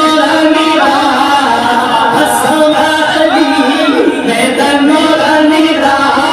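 Male voices singing a devotional Punjabi ghazal, with long, gliding held notes over music.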